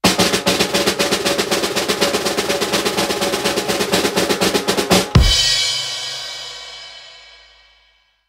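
Drum roll sound effect: a rapid snare drum roll for about five seconds, ending in a loud crash hit that rings out and fades away over about three seconds.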